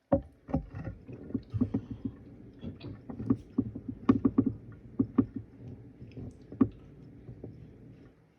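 Gassy stomach gurgling: an irregular string of short pops and squelches over a low rumble, from gas after drinking soda.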